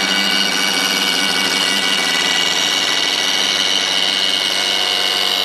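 Cordless angle grinder on a blade-sharpener's pivoting arm, running steadily with a high whine while its disc grinds the cutting edge of a lawn mower blade.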